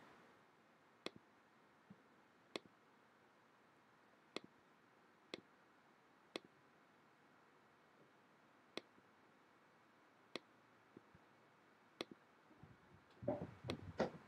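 Faint, isolated clicks of a laptop trackpad, about a dozen, spaced unevenly over near silence, with a brief soft rustle near the end.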